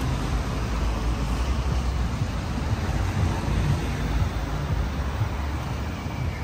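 City street traffic: cars passing on the road beside the sidewalk, a steady wash of noise with a heavy low rumble.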